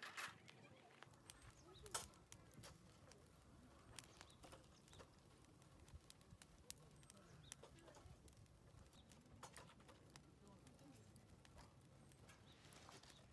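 Faint crackling of a small wood fire in a stainless mesh fire basket, irregular sharp pops, with wooden knocks as split firewood sticks are laid onto it; one louder crack about two seconds in.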